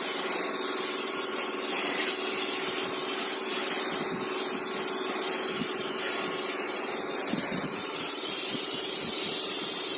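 A steady, loud hiss like a jet of spray, with a steady hum underneath, unbroken throughout.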